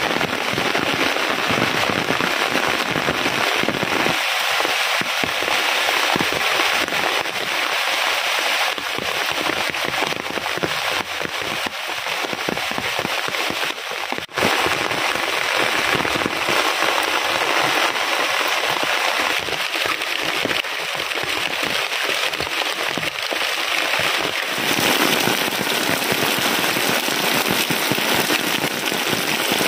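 Heavy rain pouring down: a dense, steady patter of drops striking plastic sheeting and leaves, with a brief break about halfway through.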